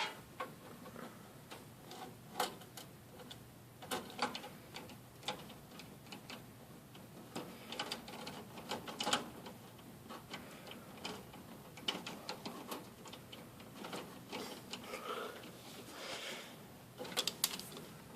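Irregular faint clicks and ticks of a screwdriver turning the small screws that fasten a motherboard to a computer case.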